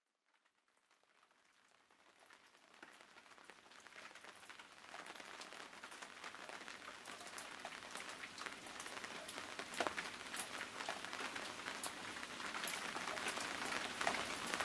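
Rain falling in a beech forest, a steady hiss dotted with many individual drops ticking sharply. It fades in from silence about two seconds in and slowly grows louder.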